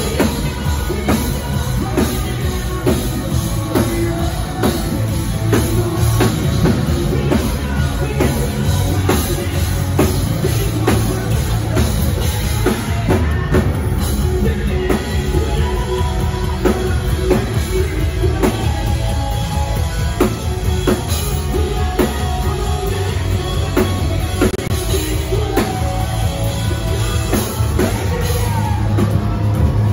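Post-hardcore band playing live at full volume: distorted guitars, bass and a drum kit driving a steady beat, with some singing over the top.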